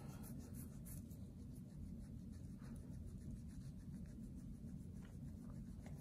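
Quiet room with a steady low hum, faint scratchy rustling and a few light ticks.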